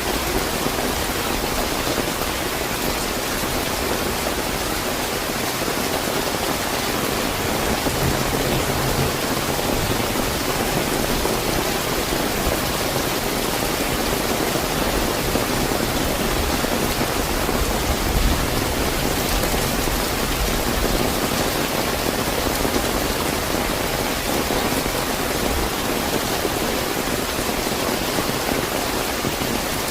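Steady, fairly heavy rain falling and pattering on surfaces, a dense even hiss with a faint low rumble now and then.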